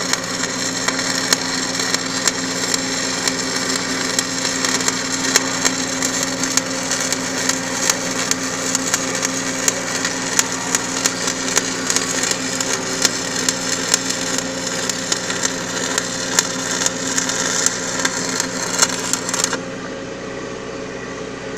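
Electric arc welding: a steady frying crackle with frequent sharp pops over a steady hum, the arc cutting off suddenly near the end and leaving only the hum.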